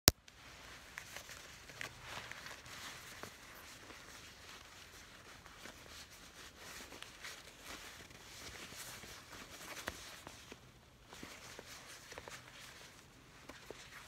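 A sharp click, then a leather jacket rubbed and squeezed by fingers right at the microphone: soft rustling with many small crackles and ticks.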